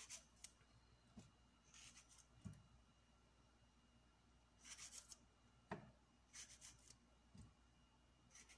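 Faint sound of tomatoes being sliced by hand with a kitchen knife: several short scraping strokes through the fruit, with a few soft knocks in between.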